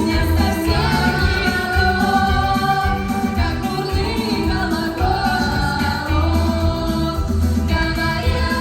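Music: a song with singing over a steady bass beat.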